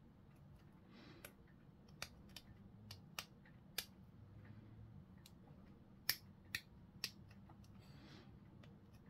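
Hobby sprue cutters snipping plastic miniature parts off the sprue: a scattering of sharp, irregular clicks, the loudest about six seconds in.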